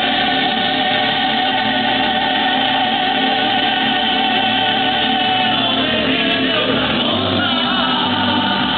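Mariachi band playing live: several voices singing together in long held notes over violins and guitars. A pulsing bass line comes in about seven seconds in.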